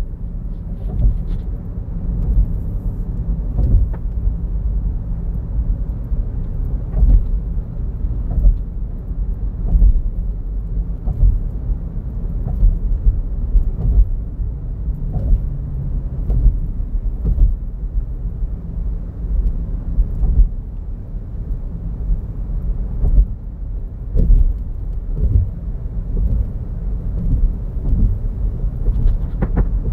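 Steady, deep road and tyre rumble inside the cabin of a moving car, with occasional short thumps.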